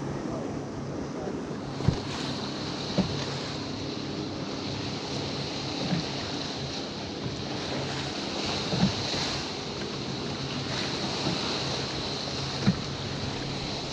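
Wind on the microphone and water lapping against a small fishing boat, over a steady low hum, with about five light knocks spread through.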